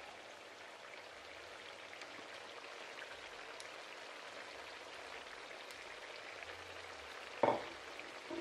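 Sliced potatoes and onion frying in a pan of hot oil: a steady sizzle of bubbling oil. The potatoes are browning but not yet soft. One short knock sounds about seven and a half seconds in.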